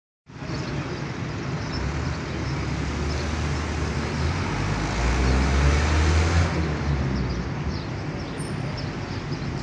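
Road traffic noise, a steady roar with a vehicle passing whose low rumble swells and is loudest about five to six seconds in, then fades.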